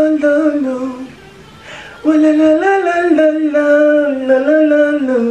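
A single voice singing unaccompanied in two short phrases of held notes, the first ending about a second in and the second starting about two seconds in, each sliding down in pitch at its close.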